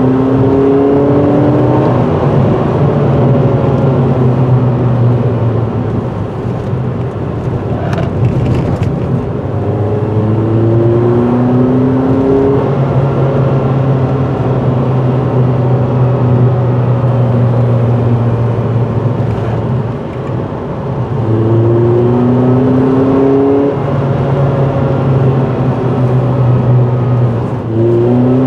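2006 Ford Fiesta ST150's 2.0-litre four-cylinder engine, with a cone air filter and resonator-deleted exhaust, heard from inside the cabin while driving. Its note climbs in pitch under acceleration four times (at the start, about ten seconds in, about twenty-one seconds in and at the very end), with a steady drone at cruise in between.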